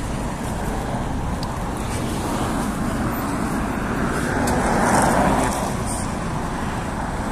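Steady engine and road noise inside a GAZelle City (GAZ-A68R52) minibus on the move, with a louder rush of noise for about a second around five seconds in.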